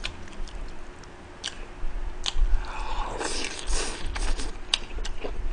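Close-miked eating of udon noodles: chewing, with a loud slurp of noodles about three seconds in and a few sharp clicks.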